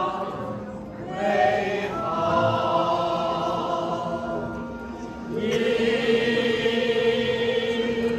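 Small choir singing long, held notes, with a louder phrase starting about five and a half seconds in.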